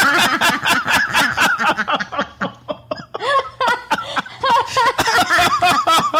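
Two women laughing together in quick pulses, easing off for a moment in the middle and then starting up again.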